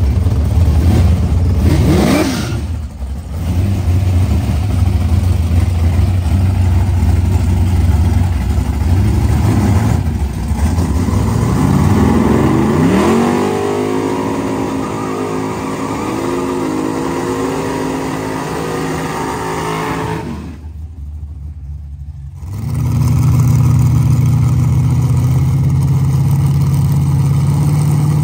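Car engines running and revving, with a sharp rise in engine pitch about twelve seconds in and another near the end. The sound drops out for about two seconds a little past twenty seconds, then a steady engine drone resumes.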